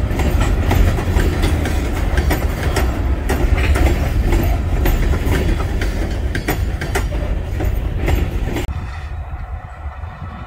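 Freight cars rolling past close by: a heavy rumble of steel wheels on rail with many sharp clicks as the wheels cross rail joints. About nine seconds in it cuts off suddenly to a quieter, duller rumble of the train approaching from further away.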